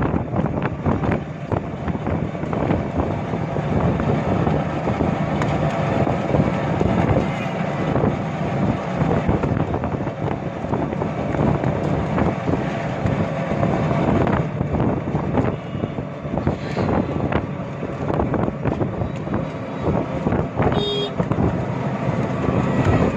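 Inside a moving auto-rickshaw: its engine running steadily with constant rattling and jolts over the road, and wind on the microphone. A short horn toot sounds near the end.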